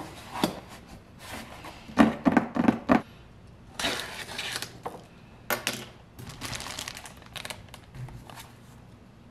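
Package handling: a cardboard mailer box knocked and thunked a few times, then bursts of rustling and crinkling from plastic wrapping around a bag.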